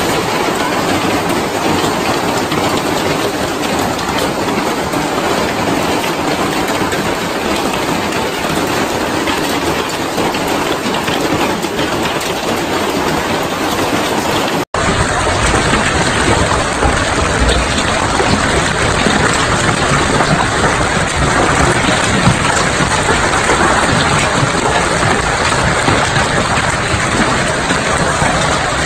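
Heavy hail falling, a loud, dense, steady clatter of hailstones. About halfway through it cuts out for an instant and resumes as a second hailstorm recording with a heavier low rumble.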